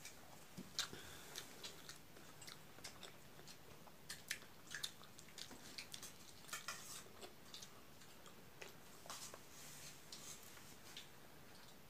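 Faint close-up eating sounds: a person chewing rice with milk curry, with irregular small wet mouth clicks and squishes.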